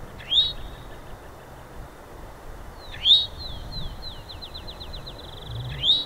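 Eastern towhee calling: three loud, short rising call notes, about three seconds apart. Between the second and third call, a fainter series of slurred notes speeds up into a fast trill.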